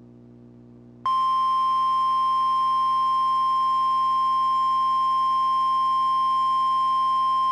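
National Weather Service warning alarm tone, the 1050 Hz signal that automatically switches on specially equipped weather receivers. It is sounded here as a weekly test: one steady, unbroken tone that comes on abruptly about a second in.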